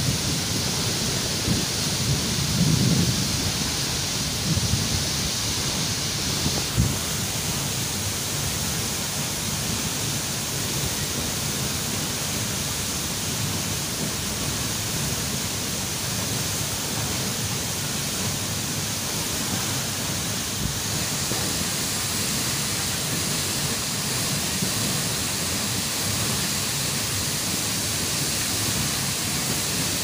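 Tall waterfall plunging into its rocky plunge pool: a steady rush of falling water, with a low rumble that comes and goes in the first several seconds.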